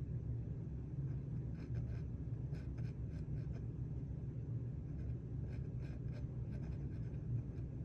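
Graphite mechanical pencil scratching on a drawing panel in short, quick hatching strokes that come in clusters, over a steady low hum.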